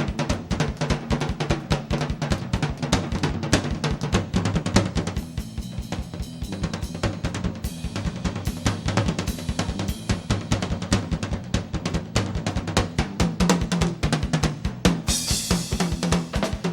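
Live rock band playing, with the drum kit to the fore: fast kick and snare beats over a steady bass line, and a cymbal crash about fifteen seconds in.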